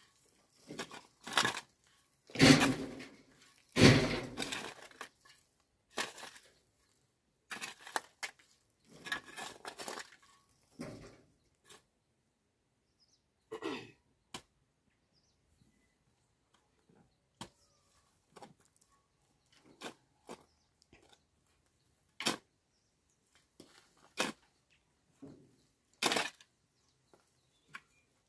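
Hand digging in stony soil with a hoe and a spade: irregular strikes and scrapes of the metal blade into earth and stones. The two loudest strikes come about two and a half and four seconds in; later ones are sparser and fainter, with quiet gaps between.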